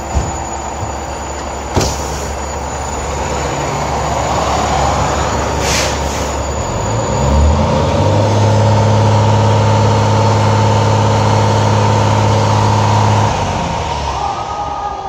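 FDNY fire engine and ladder truck diesel engines running as the rigs pull out. There are three short sharp hisses in the first six seconds, air brakes being released. From about seven seconds in, a loud steady engine hum builds as a rig passes close, then fades near the end.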